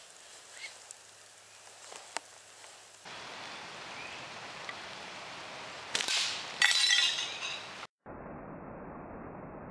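A sharp crack, then a thick glass microwave plate shattering: a loud burst of breaking glass with a ringing clatter that lasts under a second.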